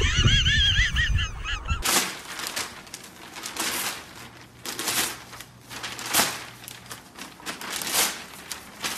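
For about two seconds, wind rumble on the microphone with a quick run of high, arching squeaky calls. It then cuts to newspaper crinkling and tearing in short irregular bursts as a golden retriever rips at the sheets in its mouth.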